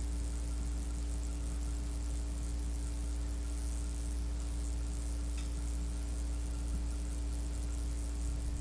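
Steady background hum and hiss of an old cassette-tape recording: a deep mains-type hum with a few steady tones above it and an even tape hiss, unchanging throughout.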